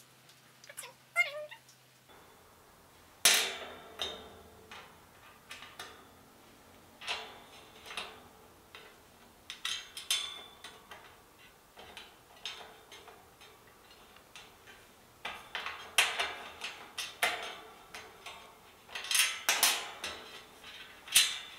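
Sharp metal clicks, taps and knocks from screws and an Allen key against the metal panels of a flat-pack IKEA TESAMMANS cabinet being assembled. They come irregularly from about three seconds in. A cat meows once about a second in.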